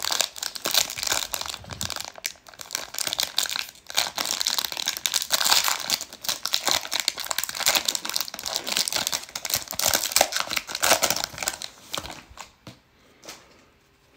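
Plastic wrapper of a baseball card pack being torn open and crinkled in the hands, a dense crackling that stops near the end as the cards come out.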